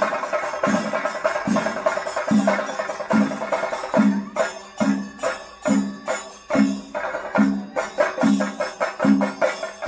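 Music with a steady percussion beat, a little more than one stroke a second, under dense ringing higher tones. The beat grows more prominent about two seconds in.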